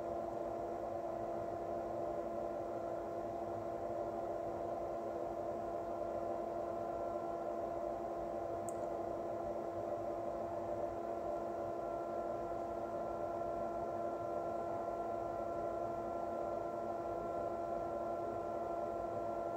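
Steady electrical hum holding a few fixed pitches, with one faint tick about nine seconds in.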